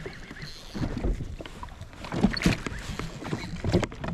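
Small waves lapping and slapping against the hull of a drifting jet ski in irregular splashes, with a few louder slaps past the middle.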